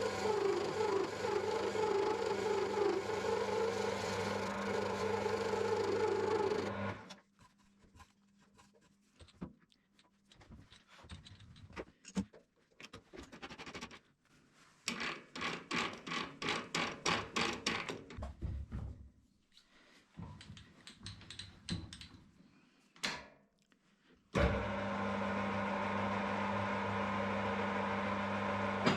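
Metal lathe's electric motor running with a steady hum, stopping about seven seconds in. Hand work on the part follows: scattered clicks and scrapes and a quick run of about four taps a second. The lathe hum starts again suddenly near the end.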